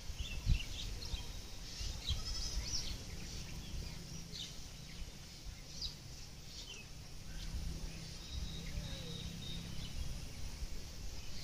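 Outdoor field ambience: many short, scattered bird chirps over a low, steady rumble, with one faint gliding animal call about nine seconds in.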